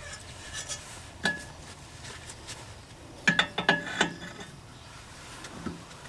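Adjustable wrench turning the forcing nut of a ball joint separator tool on a car's outer tie rod end: sharp metal clicks and clinks, with a quick cluster of the loudest ones about three to four seconds in.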